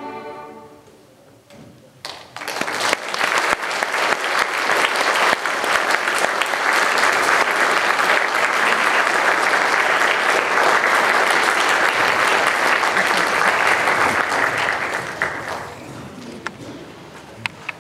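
The last note of a string piece fades out, then an audience applauds: clapping starts about two seconds in, stays steady, and dies away a couple of seconds before the end.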